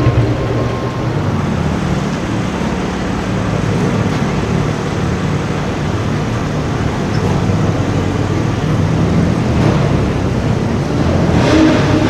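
Car engine running at low revs with a low, steady engine note, with street traffic noise behind it; it grows a little louder near the end.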